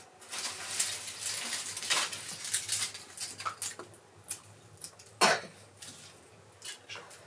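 Dry twigs and stalks rustling, crackling and snapping as they are pushed into the fire of a clay floor oven, with one sharp loud snap about five seconds in.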